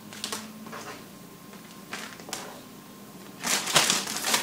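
A plastic bag crinkling and rustling as cubed pork is put into it: a few short rustles, then a louder stretch of crinkling for the last second or so.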